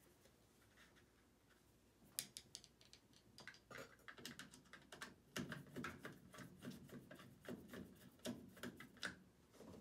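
Phillips screwdriver working out the washer drain pump's mounting screws: many small irregular clicks and light metal scrapes, starting about two seconds in after a quiet moment.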